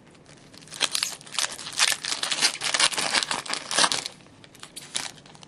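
Plastic-foil trading card pack wrapper being torn open and crinkled by hand. There is a dense crackling for about three seconds, then a few more crinkles near the end.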